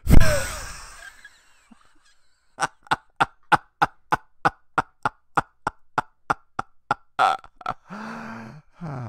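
A sudden loud burst of breath at the start, then a cartoon character's laughter: a long run of quick "ha" pulses, about three a second, ending in a drawn-out voiced laugh.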